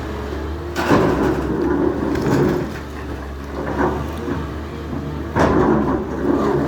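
Demolition machinery running steadily, with two loud crashing, scraping impacts of debris, about a second in and again near the end.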